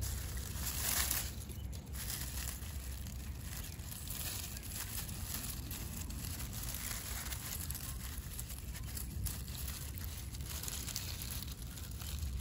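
A hand rustling through vinca leaves and dry dead leaves, a crackling crinkle that is loudest about a second in, over a steady low rumble.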